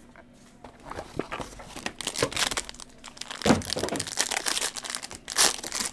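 Wrapping on a sealed baseball-card box being slit with a knife and pulled open: plastic crinkling and tearing in irregular bursts, starting about a second in.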